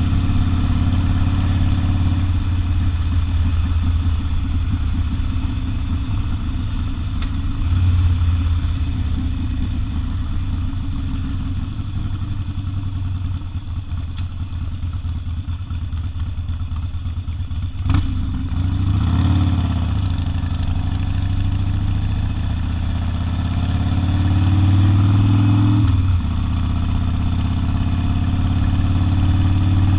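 Harley-Davidson Sportster V-twin with open exhaust running under way: it eases off through the middle, a sharp click comes just past halfway, then the engine speeds up with rising pitch, drops abruptly at a gear change near the end and pulls up again.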